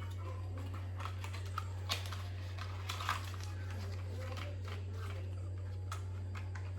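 Scattered light clicks and rustles of items being handled, with a couple of sharper ticks about two and three seconds in, over a steady low hum.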